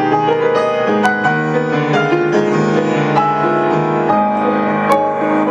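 Grand piano played solo: a flowing passage of held chords and melody notes, the notes changing every half-second or so.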